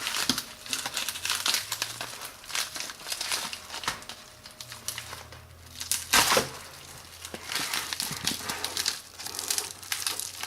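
A mailing package being torn open by hand: the packaging crinkles and rips in irregular bursts, with one louder rip about six seconds in.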